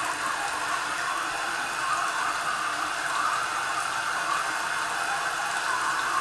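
Bathroom sink tap running steadily, its stream of water splashing into the basin.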